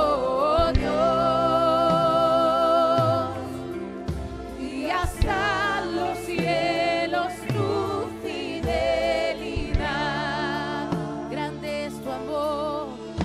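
Christian worship music: a voice sings long, held phrases with vibrato over a steady instrumental accompaniment.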